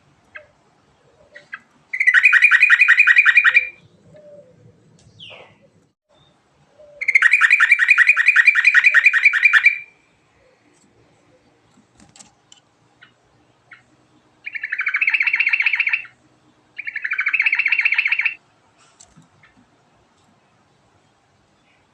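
Yellow-vented bulbul (trucukan) singing four long rolling phrases of fast, rapidly repeated notes, with short quiet gaps between them.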